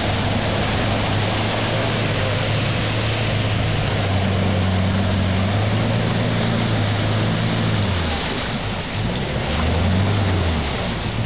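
Toyota Hilux ute's engine running under load in a deep water-filled mud hole, with a constant wash of churning muddy water. The engine note holds steady, then from about eight seconds in it revs up and down repeatedly as the bogged truck tries to drive out.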